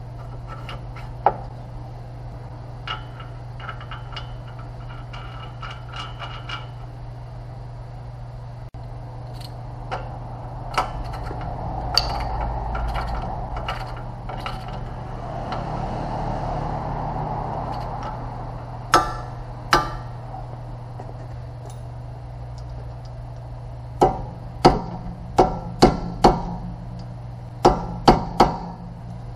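Hand tools clinking and knocking on metal parts of a car's rear wheel hub, with a quick run of sharp taps near the end, over a steady low hum.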